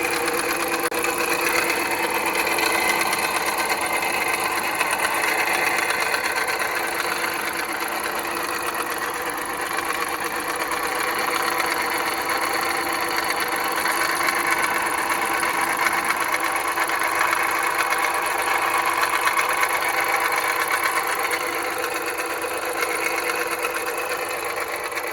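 2010 Jeep Patriot's 2.0-litre four-cylinder engine running with a steady, rapid metallic clanking from the engine area; the noise was traced to a failing alternator, and it stopped once the alternator was replaced.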